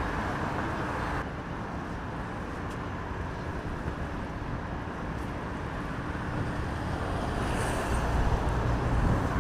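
Steady road-traffic noise, with a vehicle passing as a low rumble that grows to its loudest near the end.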